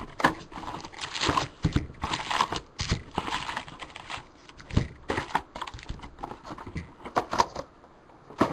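A 2011 Bowman Draft cardboard hobby box is opened and its foil card packs are pulled out and stacked. The result is irregular crinkling and rustling, with light taps and knocks.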